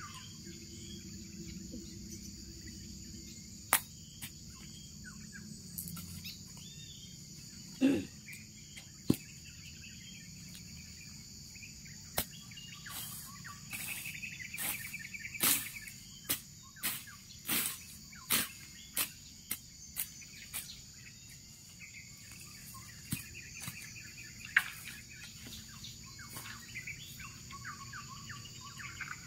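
Steady, high-pitched drone of insects, with a series of sharp chops in the middle, about two a second, as a machete cuts through brush and dry stems.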